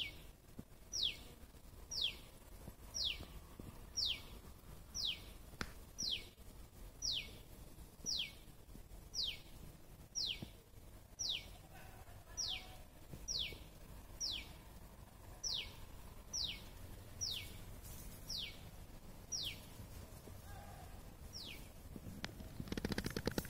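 A high, thin call that sweeps quickly down in pitch, repeated evenly about once a second, some twenty times, over a faint background. Near the end the calls stop and a rough rustling noise rises.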